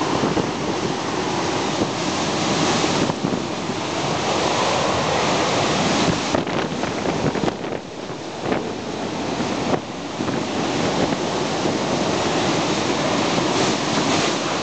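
Hurricane-force wind blowing in continuous heavy gusts and buffeting the microphone. It eases and surges unevenly for a few seconds about six to ten seconds in.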